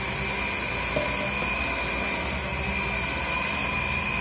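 Electric hand mixer running steadily, its beaters whisking runny cake batter in a bowl, with a steady high whine from the motor. A brief click about a second in.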